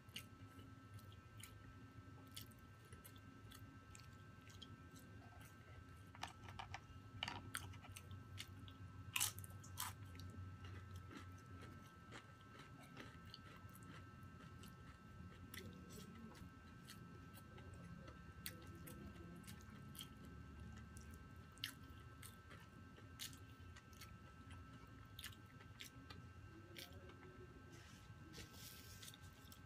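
Close-miked chewing and mouth sounds of a person eating rice, laing and crispy fried chicken skin, with scattered crunches and smacks, the loudest about seven to nine seconds in.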